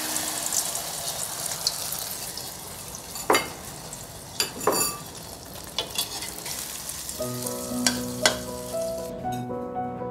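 Food sizzling in a hot steel wok, with a metal ladle scraping and knocking against the pan about six times. Music comes in about seven seconds in, and the sizzle dies away near the end.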